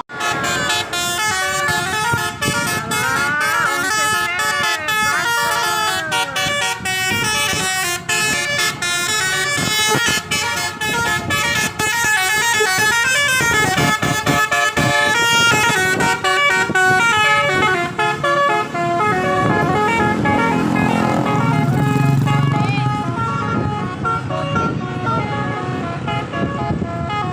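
Tour bus 'telolet basuri' horn, a multi-tone musical air horn, playing a long tune of quick stepped notes, with a few sliding notes in the first seconds. Vehicle engine noise runs beneath it.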